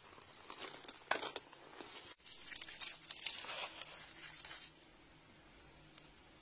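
Fingers scraping and crunching through wet, gritty sand and gravel, with a denser run of scratching from about two seconds in that thins out near the end.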